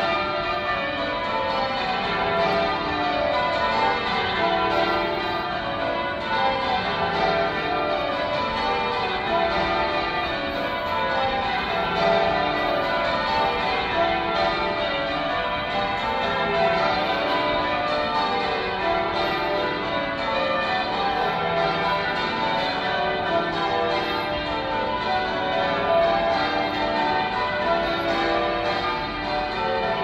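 Manchester Cathedral's tower bells ringing, struck one after another in repeating descending rows, a continuous run of overlapping strikes.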